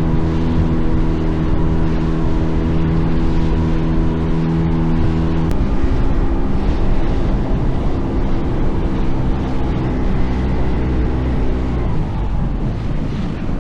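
A small fishing boat's engine running under way, with wind and water noise. The engine note changes abruptly about five seconds in and dies down near the end as the boat eases off.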